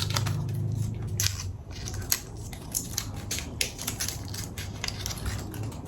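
Watch packaging being handled and opened by hand: irregular crinkling, crackling and clicks of paper and cardboard.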